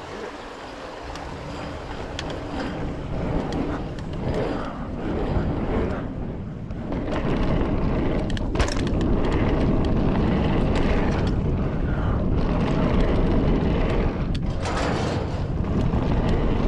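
Wind rushing over the microphone and knobby tyres rumbling on flagstone and concrete as a mountain bike rides downhill. The noise grows louder over the first several seconds as the bike picks up speed, with occasional sharp clicks and knocks from the bike going over bumps.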